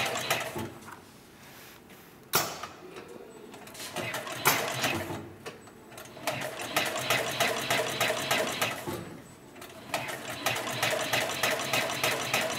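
Heavy-duty 204-370 type two-needle leather sewing machine stitching through thick leather: a fast, even run of stitch knocks starting about six seconds in, a brief pause around nine seconds, then stitching again. Two sharp clicks come before the sewing starts.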